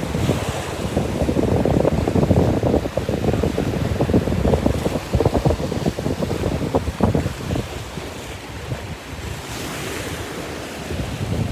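Wind buffeting the microphone in loud, uneven gusts over the wash of sea surf.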